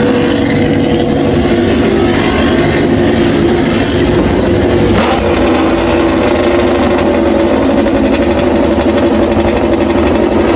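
Honda RC213V MotoGP bikes' V4 engines idling steadily at a loud, unchanging pitch.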